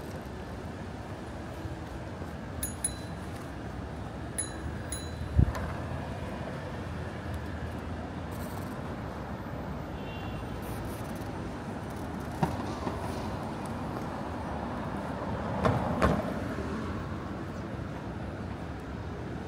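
City street ambience: a steady hum of road traffic, broken by a few sharp knocks and light clinks, the loudest knock about five seconds in and two more close together near the end.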